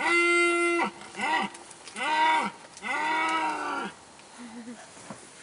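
A red deer stag (Cervus elaphus) bugling: one loud held call, then three shorter calls that rise and fall in pitch, the last about a second long, before it stops about four seconds in.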